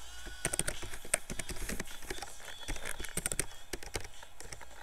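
Computer keyboard typing: quick, irregular key clicks in short bursts.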